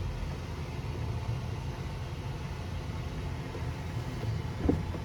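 Car engine idling at a standstill, heard from inside the cabin as a steady low rumble, with one brief, louder short sound near the end.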